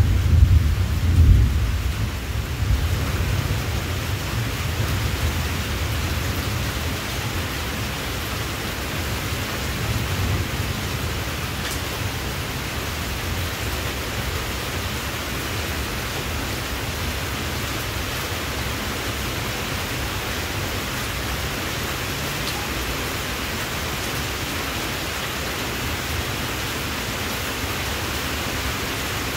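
Steady hiss of heavy rain, with a low rumble in the first few seconds that fades away.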